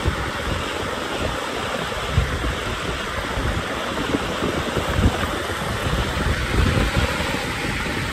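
Shallow flash-flood water running across a street, a steady rushing noise, with wind buffeting the microphone in gusts.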